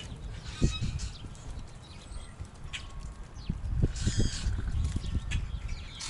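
Common grackles and mourning doves moving about: a few soft low knocks and several short, high, rasping calls, the biggest cluster about four seconds in.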